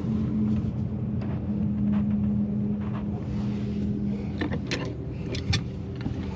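A motor running with a steady low hum, and a few light metallic clinks near the end as threaded pipe fittings are handled.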